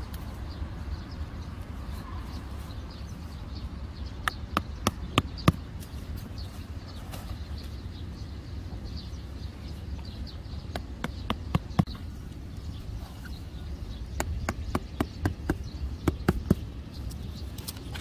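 Boundary-wire pegs being handled and fixed into a lawn: short runs of sharp taps, a handful about four seconds in, a few more near the middle and a longer run later, over a steady low rumble.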